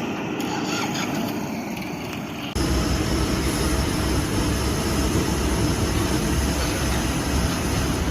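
Backhoe loader's engine running steadily. About two and a half seconds in, the sound changes abruptly and becomes louder and deeper.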